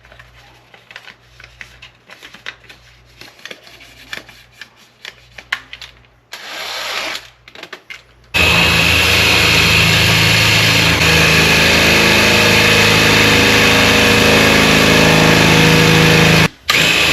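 Faint clicking and handling, then about eight seconds in a power drill starts and runs steadily at full speed, drilling into a safe. It stops briefly and starts again near the end.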